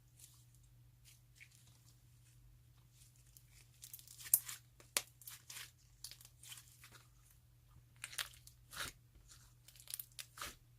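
Crunchy confectionery being crushed and worked into slime: scattered crisp crunches and crackles, coming in clusters about four, eight and ten seconds in.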